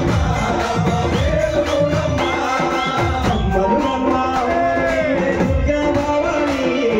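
Live Telugu devotional song music: an electronic keyboard plays a bending, ornamented melody over a steady hand-drum beat.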